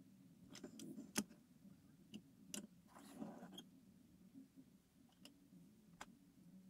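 Faint clicks and taps of fingers and tweezers handling a small toy truck, the sharpest about a second in, with a brief rustle around three seconds in. A faint low hum runs underneath.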